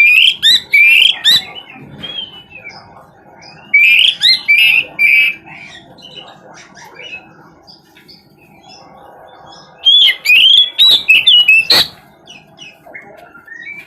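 Oriental magpie-robin (kacer) singing: three loud bursts of rapid whistled, warbling phrases with quieter gaps between them, the last burst ending in a couple of sharp clicks.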